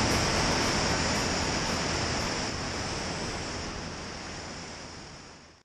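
Steady rush of airflow and engine noise from a Cessna 152 in flight, picked up by a camera mounted outside on the wing. It fades out gradually and drops to silence at the very end.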